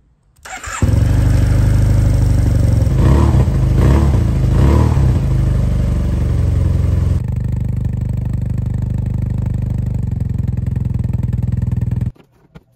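Yamaha TMAX 500's parallel-twin four-stroke engine starting on the electric starter and catching within a second, then running loudly with a few brief swells in revs, settling to a slightly quieter steady idle and cutting off suddenly near the end. It is the first run after an oil and filter change, with the fresh oil filling the new filter.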